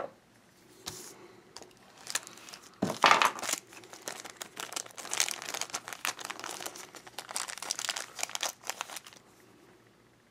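Crinkling of toy packaging, a small clear plastic bag and a cardboard blind box being handled, in irregular bursts that start about a second in, are loudest around three seconds, and stop about a second before the end.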